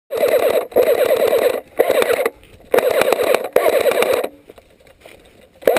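Airsoft electric rifle, AK-style, firing on full-auto in five short bursts of rapid buzzing shots over about four seconds. Then comes a quieter stretch of faint clicks and rustling, and another burst starts at the very end.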